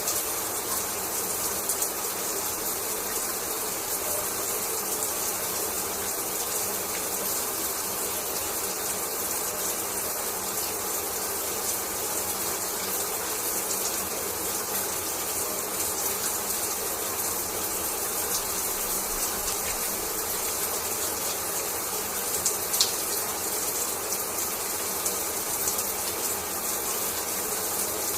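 Shower water running steadily, a constant hiss of spray falling and splashing. A single sharp click stands out about four-fifths of the way through.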